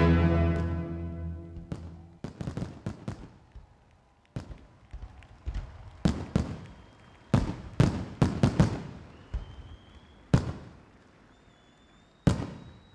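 Show music fading out, then a series of firework explosions: about a dozen sharp bangs at irregular intervals, thinning out toward the end, with one late bang near the end.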